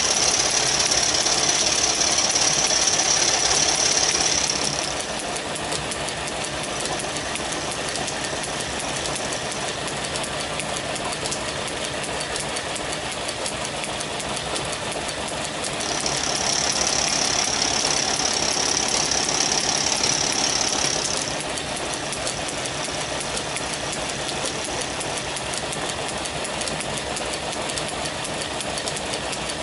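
Metal lathe running with a 5 mm end mill in the chuck, milling a piece of brass held in the tool post. Twice, for about five seconds each (at the start and again about 16 s in), the cut is taken and the sound gets louder with a high-pitched ring; between the passes only the lathe's steady running is heard.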